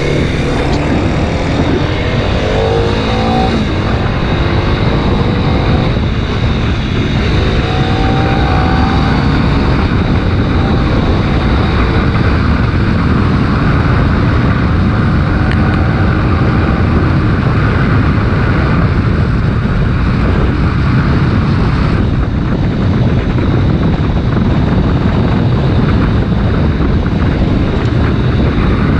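Kawasaki Ninja 250 RR Mono single-cylinder engine revving up through the gears several times in the first ten seconds or so as the bike accelerates, then running steadily at speed. Heavy wind noise on the bike-mounted camera's microphone runs under it throughout.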